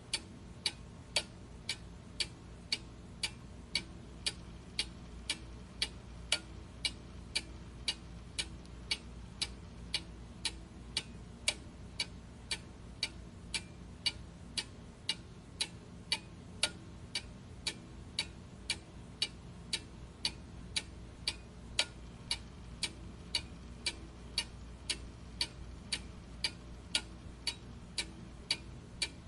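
Clock ticking steadily, a little under two sharp ticks a second.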